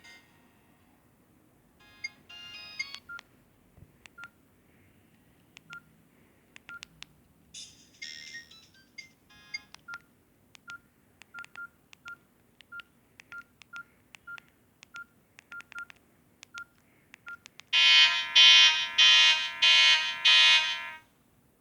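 Samsung GT-E1200i mobile phone: a run of short single-pitch key beeps with button clicks, broken by brief ringtone snippets. About 18 s in, a loud ringtone plays five pulsing chords, then cuts off near the end.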